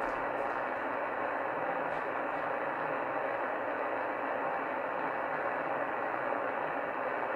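Shortwave receiver on CB channel 38, lower sideband, putting out a steady band of static hiss with no voice coming through: band noise while the skip has faded out.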